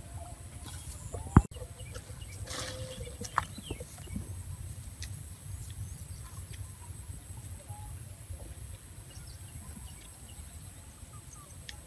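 Outdoor field ambience: a steady low wind rumble on the microphone and a steady high hiss, with faint scattered animal calls. One sharp click comes about a second and a half in, and a brief rustle follows a second later.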